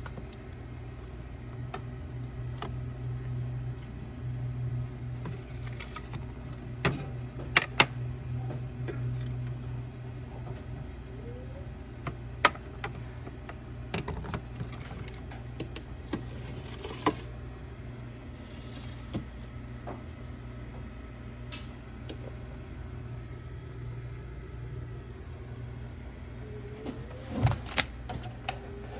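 Scattered clicks, clinks and knocks of kitchen work, such as utensils and containers being handled, over a steady low hum.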